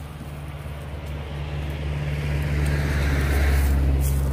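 An engine running steadily with a low hum, growing louder over the first three seconds or so and easing slightly near the end.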